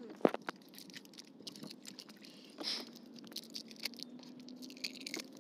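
A fishing net and its catch being handled in a wooden canoe: scattered small clicks, taps and rustles, with a sharp knock just after the start and a brief rush of noise near the middle. A faint steady hum comes in about halfway through.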